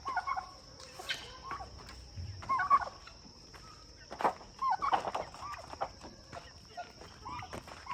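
Turkeys calling: a scattering of short, bending calls and clucks, with a faint steady high tone underneath.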